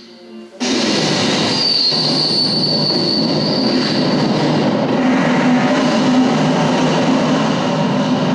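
A loud steady mechanical rumble cuts in suddenly about half a second in, as music fades, with a high thin metallic squeal over it for a few seconds.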